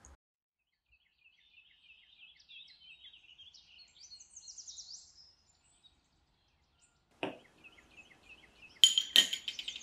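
A small bird chirping and twittering in quick runs for a few seconds. Then a single knock, and near the end several loud clinks of a metal spoon against a glass espresso cup, ringing briefly.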